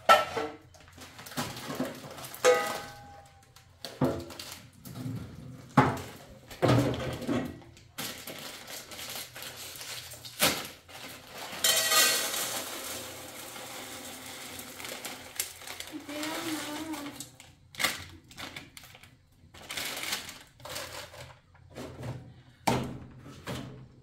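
Kitchen clatter of a metal pan and dishes, with sharp knocks and clinks throughout. About twelve seconds in, dry grains are poured from a plastic packet into the metal pan, making a brief rattling hiss.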